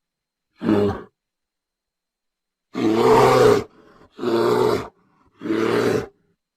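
A large animal making four loud, separate calls, each lasting under a second, with short silences between them.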